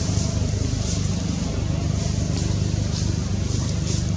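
A steady low engine hum that holds an even pitch.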